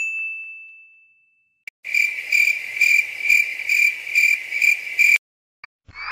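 A single bright ding that rings and fades over about a second and a half, followed by a cricket chirping in even pulses, about two or three a second, which stops abruptly about five seconds in.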